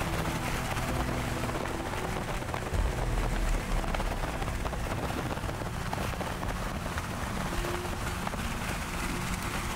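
Steady road and engine noise inside a moving car, with a few faint ticks scattered through it.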